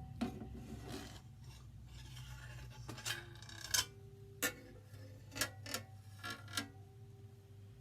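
Coin-operated prize vending machine being handled and worked on: a scatter of short clicks and rattles of its parts and contents, over a steady low hum.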